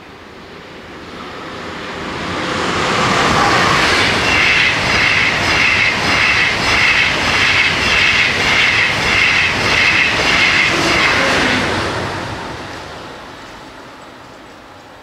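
A Deutsche Bahn long-distance passenger train passing at speed. The rush of the train builds over a few seconds and holds for about eight seconds with a regular rhythmic clatter of wheels over the track, about two beats a second. It then fades away.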